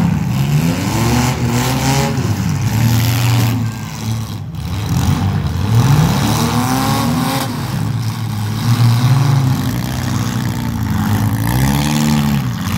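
Demolition derby cars' engines revving hard, the pitch climbing and falling again every second or two as several cars push and spin in the arena.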